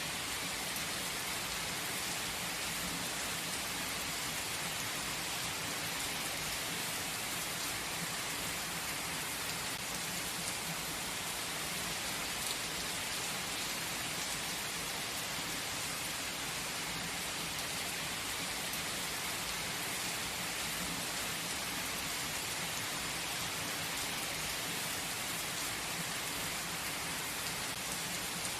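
Steady gentle rain falling, an even hiss with faint scattered drop ticks.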